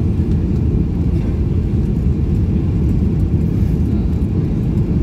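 Steady low rumble of a Boeing 737-800 airliner in flight, heard inside the cabin: engine and airflow noise.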